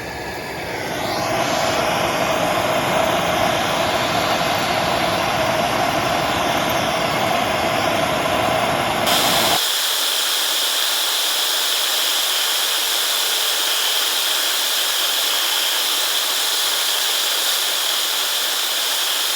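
MAP gas torch burning wide open with a steady, loud roaring hiss, heating a zinc-plated bolt before it is quenched in oil. About nine and a half seconds in, the sound changes suddenly to a thinner, higher hiss.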